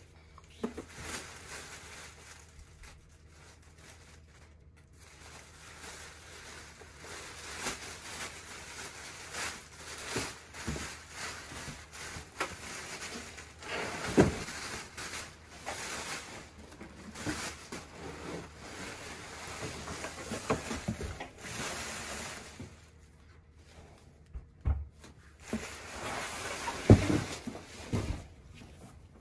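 Plastic wrap rustling and crinkling as it is pulled off a boxed guitar amp, with cardboard box handling. Near the end come a few dull thumps as the amp is taken out and set down on the floor.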